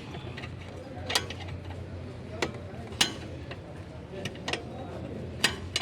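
Metal hand tools clinking and clicking against metal parts, about six sharp, irregular knocks, over a steady low hum.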